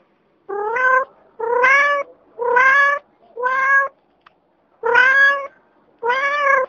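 A cat meowing six times in a row, each meow short and slightly rising, evenly spaced about a second apart.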